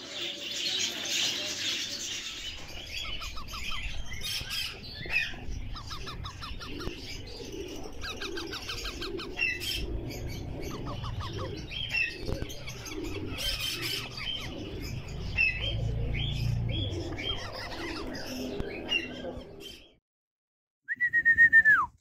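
Month-old parrot chicks calling: rapid stuttering chatter and scattered short squawks, with rustling and flapping as they move about. Near the end, after a brief break, comes a single falling whistle.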